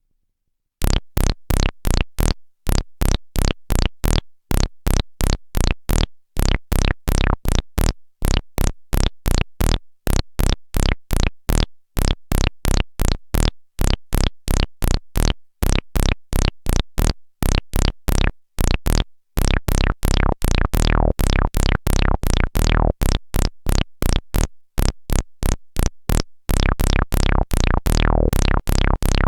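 Monophonic analog synthesizer (the Ad-vantage 03m) playing a fast sequence of short, plucky notes, about three a second, each with a sharp attack and quick decay. It starts about a second in. Around two-thirds of the way through, the notes turn fuller and ring longer, with a downward filter sweep on each.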